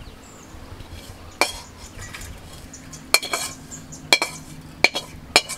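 A metal spatula scraping and knocking against a steel kadai as the dry, crumbly spiced filling is emptied into a steel bowl. There are about five sharp, ringing metallic clinks, roughly a second apart, with soft scraping between them.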